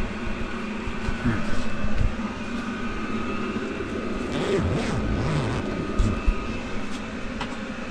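Tent heater running with a steady hum, with a few scattered short knocks and rustles.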